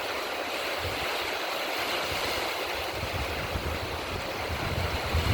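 River water rushing past a raft in a steady hiss. In the second half, wind buffets the microphone in low, uneven gusts.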